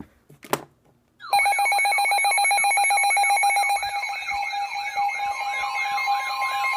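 Weather alert radio alarm sounding for a severe thunderstorm warning. After a click about half a second in, a loud electronic alert starts: a steady high tone with a warbling tone sweeping up and down about three times a second over it.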